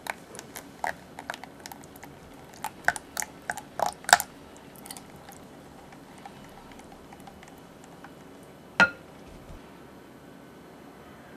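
Wire whisk stirring thick batter in a glass bowl, its wires clinking and ticking irregularly against the glass. The ticks stop about five seconds in. A single sharp clink comes near nine seconds in.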